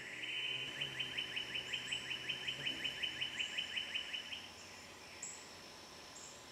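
Evening woodland ambience: a rapid run of short chirps, about five a second, lasting some three and a half seconds, over a steady high insect drone.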